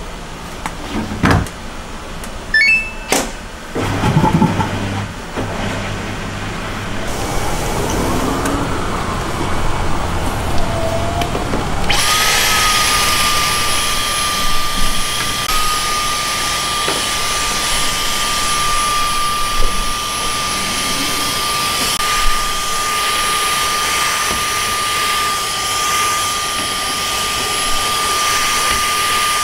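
Clicks and knocks and a short rising run of electronic beeps. Then, about twelve seconds in, a handheld cordless vacuum cleaner switches on and runs steadily with a high whine, sucking dirt from a sliding door track.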